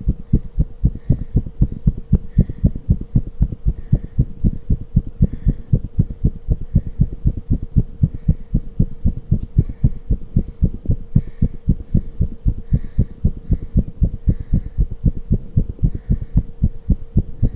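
A person's heart sounds, pounding fast in an even lub-dub rhythm, over a steady low hum.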